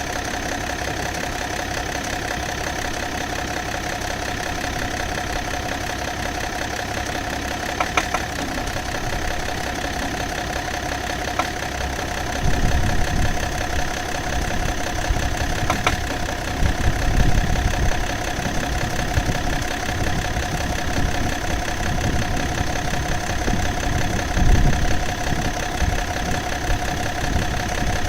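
BMW M57 straight-six diesel idling steadily, with an occasional sharp knock a few seconds apart: the rare knock of unknown origin that the owner is trying to trace. An uneven low rumble joins about halfway through.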